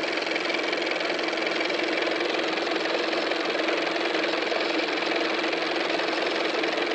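Steady, even mechanical running noise with a constant hum underneath, with no change in level.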